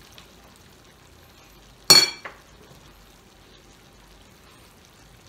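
One sharp metallic clink with a short ring about two seconds in: a metal utensil striking the metal cooking pot. Under it, a faint steady sizzle of pork sisig frying in a pan on a portable stove.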